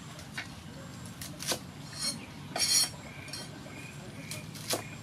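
Cleaver chopping bok choy on a wooden chopping board: a handful of separate knocks and crunches, unevenly spaced, with the loudest near the middle, while the greens are handled between cuts.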